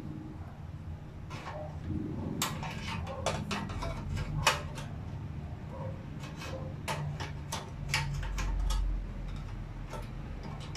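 Butane gas canister being fitted into the cartridge compartment of a CPLA portable gas stove: a run of irregular metal clicks and knocks as the can meets the holder and housing, the sharpest about four and a half seconds in.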